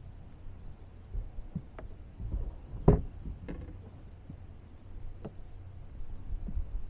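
Scattered knocks and thumps on a bass boat's deck as gear is handled, the loudest knock about three seconds in, over a low rumble.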